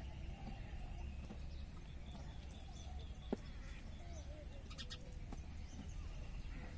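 Quiet ambience with a low steady rumble and faint animal calls. A sharp click comes about three seconds in, and a few short high chirps near five seconds.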